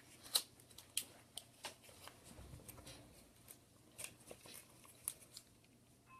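Light, scattered clicks and taps of small parts and tools being handled on a workbench, about half a dozen sharp ticks spread unevenly.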